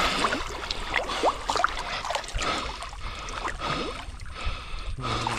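Water sloshing and trickling, with small splashes, as people move through shallow water.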